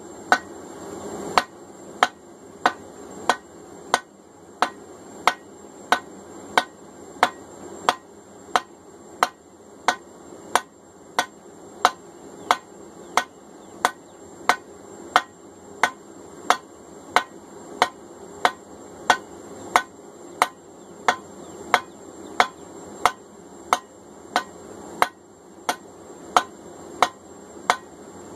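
Blacksmith's hand hammer striking a red-hot 3/4-inch rebar bar on an anvil, drawing it down to a taper: an even run of sharp blows, about one and a half a second.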